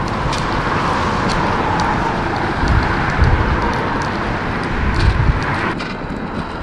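Steady outdoor rush of wind and road traffic, with low wind buffets on the microphone twice in the middle.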